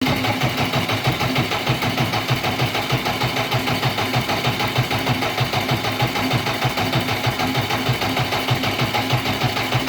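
JCB 444 four-cylinder diesel engine running with a steady, pulsing beat, misfiring; the mechanic puts it down to the timing being out.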